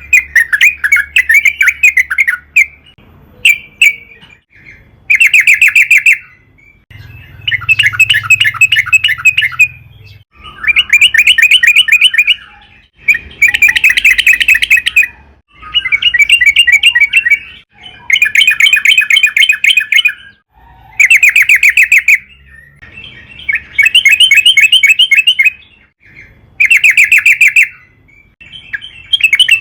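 Sooty-headed bulbul (trucukan) singing loudly: about ten bubbling phrases of rapid notes, each one to two and a half seconds long, repeated after short pauses.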